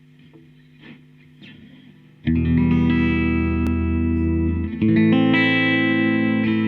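Electric guitar, a Fender '62 reissue Jazzmaster on its bridge pickup, through a Fender Twin Reverb amp with compression and a modulation effect. After about two seconds of faint amp hum and light string touches, a loud held chord rings out, moving to another chord a little past halfway.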